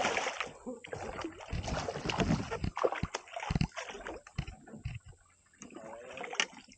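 Irregular water splashing and knocks against a kayak as a hooked Australian bass is fought alongside and netted.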